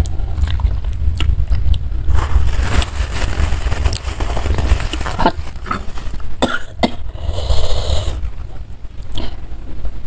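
Metal spoon and fork stirring through a bowl of noodle soup, with clicks and scrapes against the bowl, over a steady low rumble.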